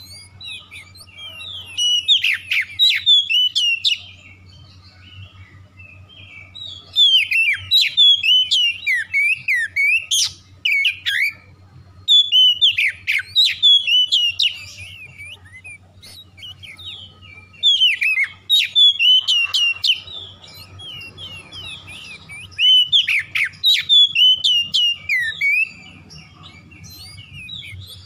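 Oriental magpie-robin singing: loud phrases of varied whistles, chirps and quick sweeping notes in about five bursts of a few seconds each, with short pauses between.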